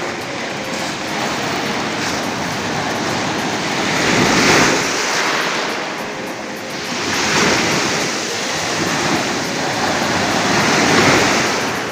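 Sea waves breaking and washing up a pebble beach: a continuous rush of surf that swells three times, at about four and a half, seven and a half and eleven seconds in.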